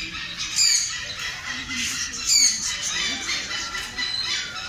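A flock of budgerigars chattering and warbling in an aviary, with loud sharp chirps rising above the chatter twice.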